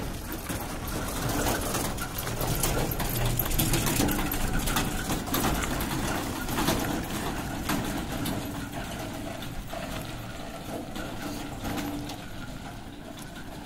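A three-wheeled rickshaw passing close on a gravel lane, with its body rattling and its tyres crunching over the stones. It is loudest a few seconds in, then fades as it moves away.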